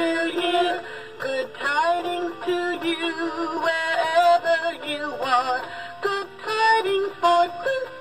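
Gemmy singing cardinal trio Christmas toy playing a Christmas song from its built-in speaker: electronic music with singing voices and a moving melody.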